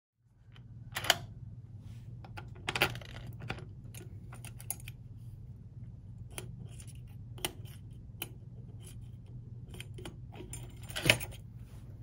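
Light metallic clicks and scrapes of a Lishi 2-in-1 lock pick being inserted and worked in a deadbolt's pin-tumbler cylinder, with a few sharper clicks, over a steady low hum.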